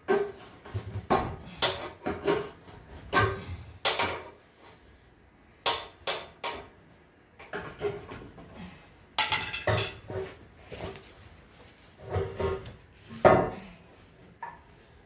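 Irregular metallic clanks and knocks, some ringing briefly, from tools and exhaust pipe sections being worked loose under a car. The knocks ease off for a couple of seconds about halfway through.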